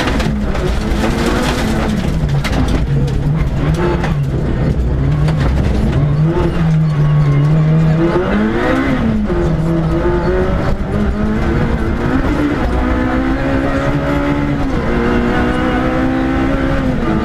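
Rally car engine heard from inside the cabin at full stage pace, revs climbing and falling with the driver's throttle and gear changes. Near the end it pulls hard through the gears, the pitch rising and dropping back at each upshift, over a steady roar of tyres on gravel.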